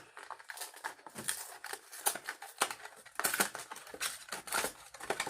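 Crinkling and rustling of a shrink-wrapped trading-card structure deck box being handled, in quick irregular bursts.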